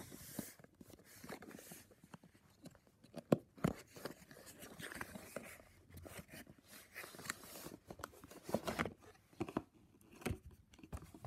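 A cardboard smartphone box and its paper packaging being handled and opened by hand: scattered light knocks and clicks with scraping and rustling of cardboard and paper.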